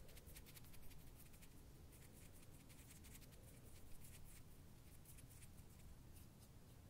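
Faint, soft scratchy brushing and rustling right at the microphone, in quick irregular strokes.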